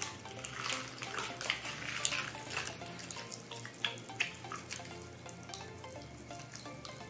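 Pop Rocks popping candy crackling and fizzing in an open mouth: a scatter of quick sharp pops, thickest in the first few seconds, along with the crinkle of a plastic candy wrapper.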